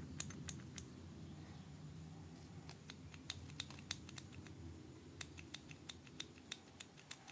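Light, irregular clicks and taps from a hand-made miniature engine cylinder head and its valves being handled and turned in the fingers, over a faint low hum.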